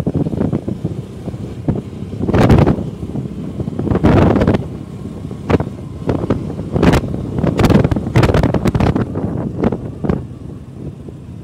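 Wind buffeting the microphone in a series of irregular gusts on a moving Honda Activa scooter, over the scooter's steady running and road noise. The gusts come loudest from about two seconds in and ease off near the end.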